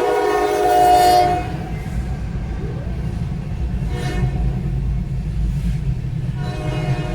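Train air horn sounding a chord of several notes, a long blast that stops about a second and a half in, then another blast starting near the end, over a steady low rumble.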